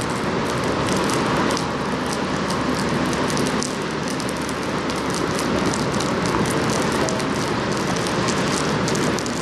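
Steady rain, with many small drops ticking over a continuous rushing noise.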